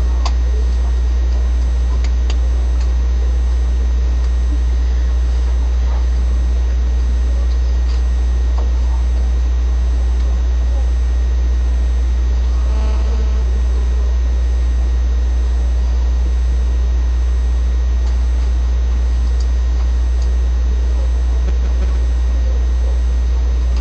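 Loud, steady low hum with a faint hiss over it, unchanging throughout. A brief faint pitched sound comes about thirteen seconds in.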